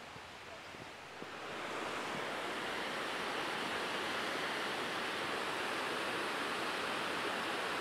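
A few soft footsteps on a dirt trail. About a second and a half in, a steady rush of water swells up and holds: the stream of the Tsushima Falls cascading over rocks toward the sea.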